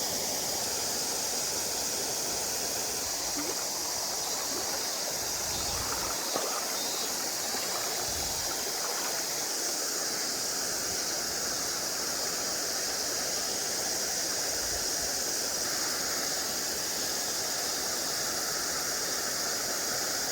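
Mountain stream water running steadily, an even rushing hiss.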